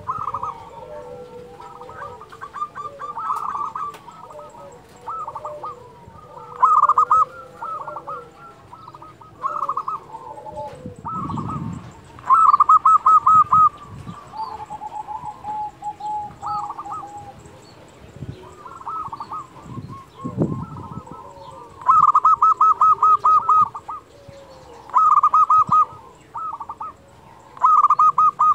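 Zebra dove (perkutut) cooing: loud bursts of rapid staccato notes, each about a second long, repeated every few seconds, with quieter lower notes between them.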